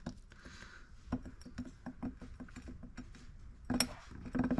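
Scattered light clicks and taps of metal engine parts being handled, with a louder clatter near the end.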